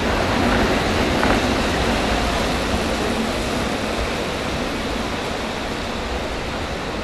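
Steady rushing noise of an indoor velodrome hall during a track race, a little louder in the first second or two as the bunch of riders sweeps past below.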